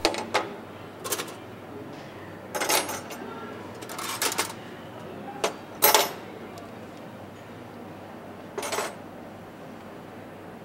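Metal cutlery clinking onto a steel cafeteria tray on the tray rail, in a run of about eight separate clinks and clatters with gaps between, the sharpest about six seconds in.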